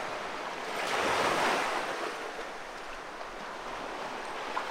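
Ocean surf washing up a sandy beach: a small wave breaks and surges in, loudest about a second in, then settles into a steady hiss of foam.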